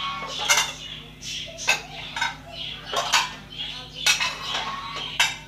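Washed plates clattering against one another and the wire dish rack as they are set into it: about six sharp clinks, a second or so apart.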